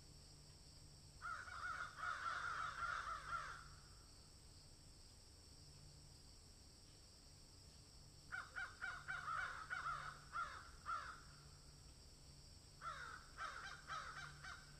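Crows cawing in three bouts of rapid, overlapping caws: one about a second in, another around eight seconds in, and a shorter one near the end.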